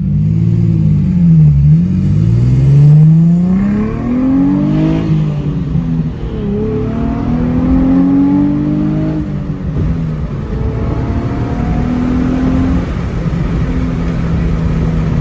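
A manual-transmission car's engine being driven through the gears: the revs rise and drop back several times as it accelerates and shifts, over a steady low drone.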